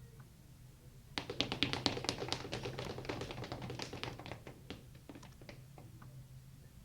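A rapid, irregular run of small taps and clicks, many a second, starting about a second in and thinning out after about four seconds: a hand-made foley effect.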